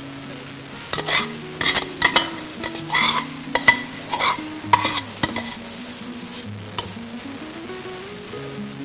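Perforated metal skimmer scraping and clinking against a stainless steel pot as cooked rice with vermicelli is scooped out, a run of scrapes and knocks, some ringing briefly, lasting about six seconds. Soft background music plays underneath.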